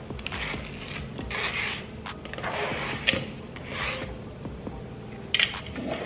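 A knife and fingers scraping chopped bell peppers and onion across a plastic cutting board into a bowl: a run of swishing scrapes with a few sharp taps.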